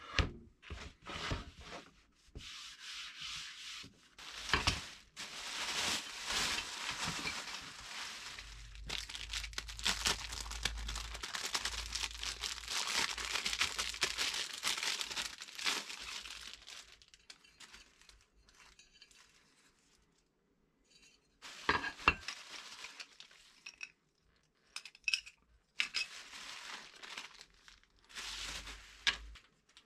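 Rubbing and scraping against wood by hand, a long steady stretch of it, then a few sharp knocks and small clicks near the end.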